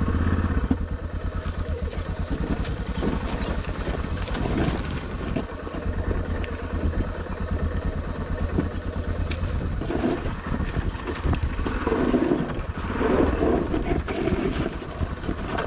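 Yamaha Ténéré adventure motorcycle's engine running steadily as it is ridden down a rough off-road track, with scattered knocks and a stretch of rougher noise about three-quarters of the way through.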